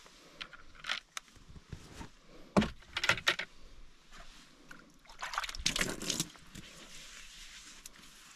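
A plastic bucket of water is knocked and set down into an inflatable boat, with a few sharp thuds, then water sloshes and splashes for about a second as the boat washing begins.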